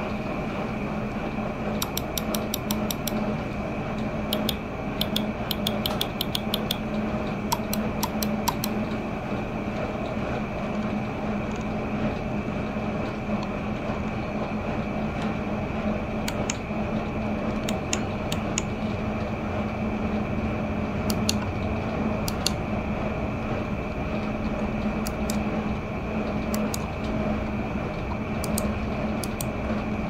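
SteelSeries gaming mouse clicking, first in quick runs of several clicks and later in single clicks and pairs, over a steady background hum.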